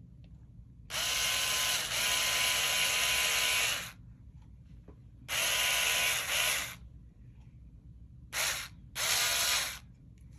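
Small electric screwdriver with a rod-end bit whirring in bursts as it spins a plastic ball end onto a turnbuckle shaft: one run of about three seconds, then a shorter run, then two brief ones near the end.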